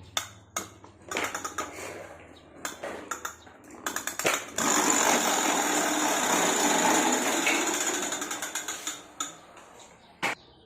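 Plastic toy clattering: irregular sharp clicks, then a steady fast mechanical rattle for about four seconds that fades out, and one sharp click near the end.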